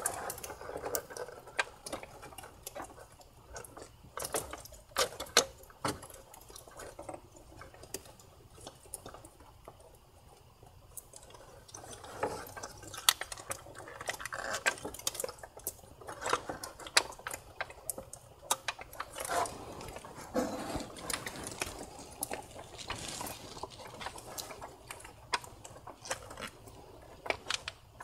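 Irregular clicks, taps and light rattles of hands working among the plastic intake manifold, wiring harness connectors and hoses of a VW 2.0T TSI engine bay, busier in a few stretches.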